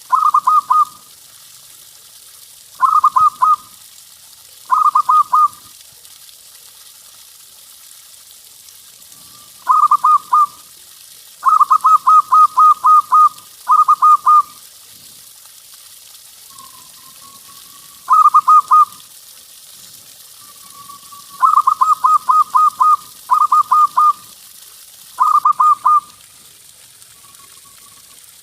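Zebra dove (perkutut) cooing: about ten phrases of quick repeated notes, some short and a few longer runs, with faint soft coos between them.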